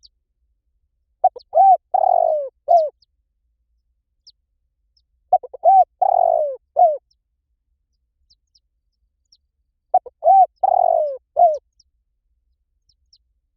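A bird calling: the same short phrase of a few notes, three times about four seconds apart, with faint high chirps in between.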